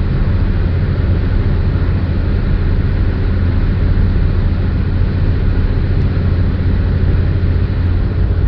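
Steady road and engine noise inside a car's cabin while cruising on an expressway, a continuous low drone with tyre hiss above it.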